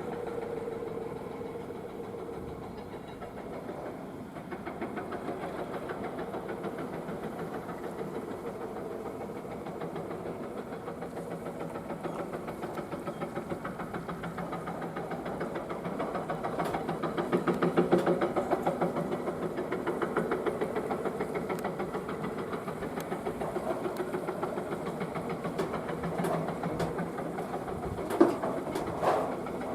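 Excavator fitted with a hydraulic rock breaker: diesel engine running under a fast, even hammering pulse. It swells about halfway through, with one sharp knock near the end.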